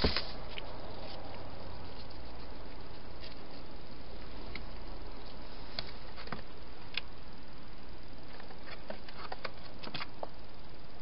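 Wild hedgehog shuffling about and eating at a plastic-box feeding station: a louder rustling scrape at the start, then scattered small clicks and crackles over a steady hiss, growing busier in the last few seconds.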